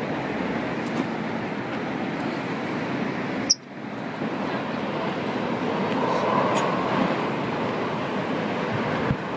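Steady outdoor street ambience: wind on the microphone and distant traffic noise, with a sharp click and a brief drop in level about three and a half seconds in.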